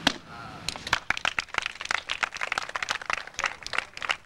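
A single sharp crack as a kick breaks a wooden board, followed from under a second in by a crowd clapping.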